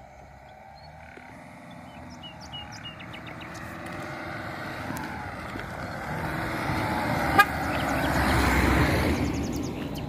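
A car approaching on a rural road and passing close by: its tyre and engine noise grows steadily louder, peaks near the end and begins to ease off. A single sharp click is heard about seven seconds in.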